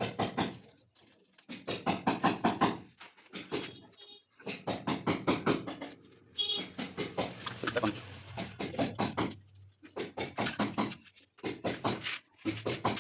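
People talking in bursts, with short pauses between phrases.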